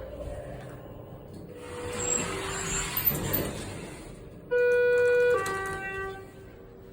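Schindler HT 330A hydraulic elevator's chime sounds a two-tone ding-dong about four and a half seconds in: a higher tone held just under a second, then a lower tone that fades away. Before it comes a few seconds of swelling rushing noise.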